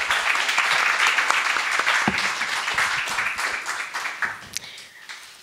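Audience applauding, fading out over the last couple of seconds.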